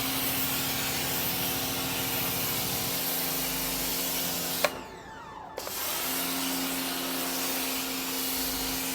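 Bosch Aquatak 130 pressure washer running with a steady motor hum under the hiss of spraying foam. About halfway through it cuts out abruptly with a click and starts up again under a second later.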